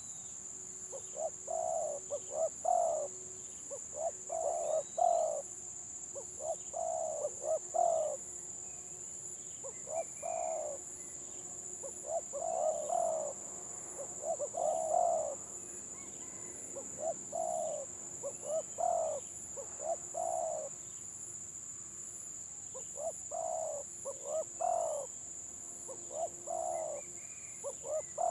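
Spotted doves (tekukur) of the stuttering 'gagap' call type cooing, in phrases of several short notes every second or two, over a steady high-pitched whine.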